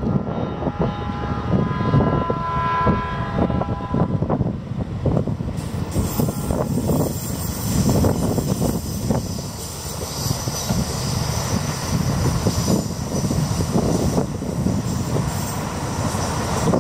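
E001 'Train Suite Shiki-shima' cruise train running over a river viaduct: a steady rumble of wheels on rail with repeated clacks at rail joints. There is a steady whine for the first five seconds, and a higher hiss of wheels and rail comes in from about five and a half seconds on.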